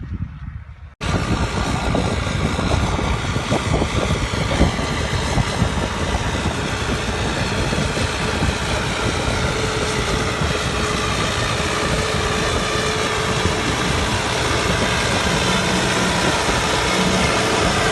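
Case JX100 tractor's diesel engine running steadily under load while pulling a plough, a dense unbroken drone with a steady hum in it. It begins abruptly about a second in, after a short stretch of quieter sound.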